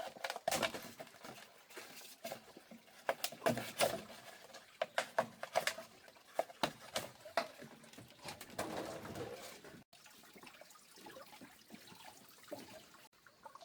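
Irregular sharp clicks and taps of objects being handled, thinning out and going quieter about nine seconds in.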